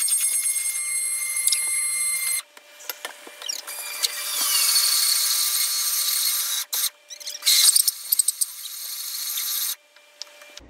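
Handheld immersion (stick) blender running in a glass bowl of tallow and lye soap batter, blending it toward trace. The high motor whine runs in bursts: it stops about two seconds in, starts again near four seconds, breaks off briefly around seven seconds and cuts off near ten seconds, with clicks and knocks between runs.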